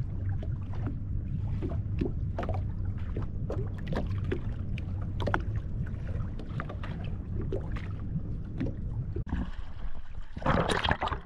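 Boat engine running steadily under way, a low hum with frequent sharp knocks over it. About nine seconds in the sound cuts off abruptly, and a loud short burst of rushing noise follows.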